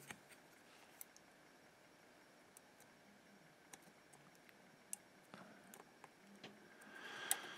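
Near silence broken by a few faint, sharp clicks of metal tweezers and wire against the pins of an RCA jack as the wire is wrapped on.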